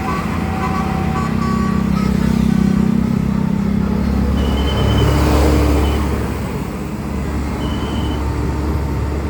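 Road traffic with a heavy engine running low and steady. A vehicle passes close, swelling louder about five seconds in and fading after.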